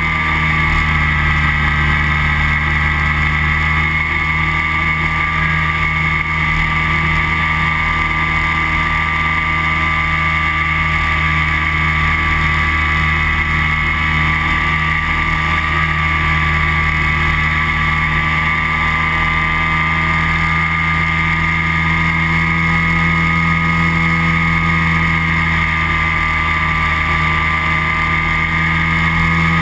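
Flexwing microlight trike's engine and propeller droning steadily in level cruise, heard from the pilot's seat, its pitch holding even throughout.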